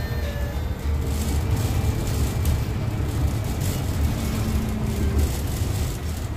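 City bus running, heard from inside its cabin: a steady low rumble of drivetrain and road noise.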